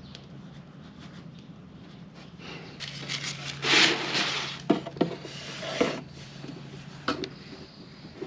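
Rubbing and scraping of tools or parts being handled, with a longer scraping rush about halfway through, then several sharp knocks. A steady low hum runs underneath.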